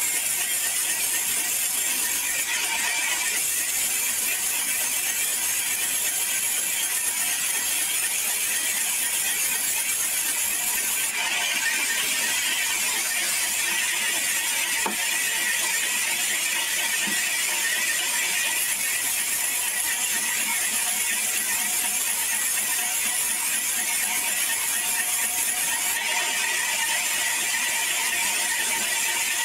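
Sawmill band saw ripping a log lengthwise: the blade running through the wood with a steady, high hissing whine.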